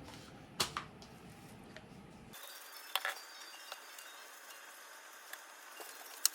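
Scattered light clinks and knocks of hard objects being handled, with three louder sharp ones spread through; the low background hum stops abruptly about two seconds in.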